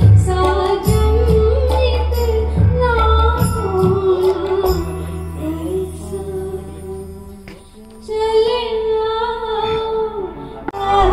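A woman singing an old Hindi film song live into a microphone, with tabla accompaniment. The music thins out and quietens about two-thirds of the way in, then her voice comes back strongly.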